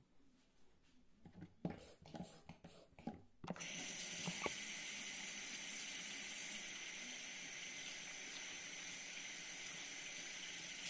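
Water running from a bathroom tap. It comes on suddenly about three and a half seconds in and runs steadily, after a few light handling knocks.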